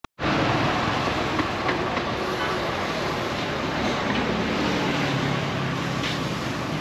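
Steady, dense noise of street traffic mixed with a charcoal rotisserie grill roasting ducks and chickens, with a few faint crackles.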